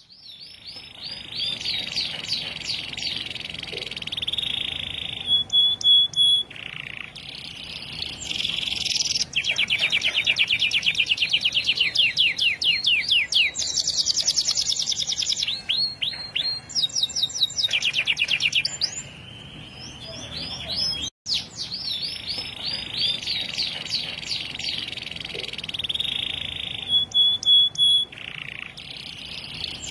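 Domestic canary singing vigorously: a long, continuous, high-pitched song of fast trills and rolling repeated notes, broken once by a brief gap about two-thirds through.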